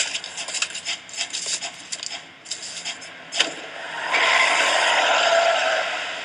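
Clicks and rattles, then a sharp knock and a loud rush of noise from a minivan pulling up fast, swelling for about two seconds and fading near the end.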